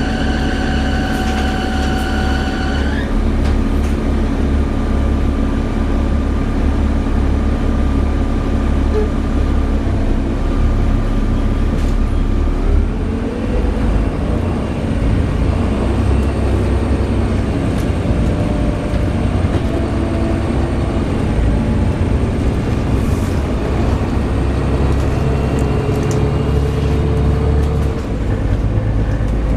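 Volvo B7TL double-decker bus heard from on board: a loud, high-pitched screech with ringing overtones rises slightly and cuts off about three seconds in. After that the engine and running gear carry on with a steady low drone and faint whines.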